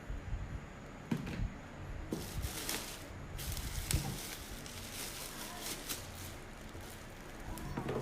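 Packaging being handled: crinkly rustling of plastic wrap and cardboard for about a second and a half in the middle, with a few light knocks and clicks from parts being moved.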